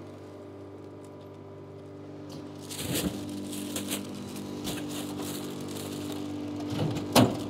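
Frozen-food vending machine humming, with its dispensing mechanism running and clunking as it delivers a boxed item. A louder knock comes near the end as the package lands in the delivery chute.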